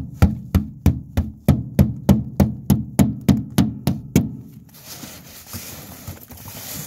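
Hand ice chipper striking the thick freezing-spray ice crust on an aluminum boat's gunwale, sharp chopping blows about three a second. The chopping stops about four seconds in and a softer, steady rough noise follows.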